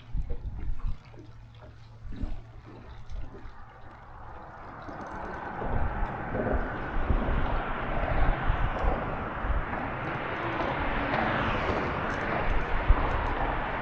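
Boat under way on the lake: a low hum at first, then rushing water and wind noise swelling from about four seconds in and staying loud.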